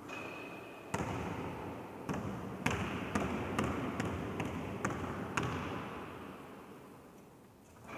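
A basketball bounced on a sports hall floor during wheelchair dribbling, about two bounces a second from about a second in until just past five seconds, over the rolling noise of the wheelchair that fades out near the end.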